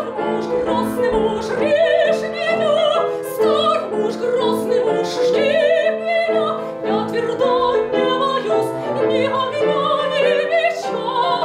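A woman singing in classical operatic style with a strong vibrato, accompanied by an upright piano.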